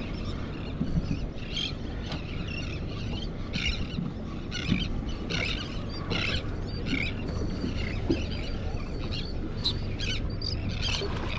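Seabirds calling over the water: short, sharp cries at irregular intervals, about one or two a second, over a steady low rumble.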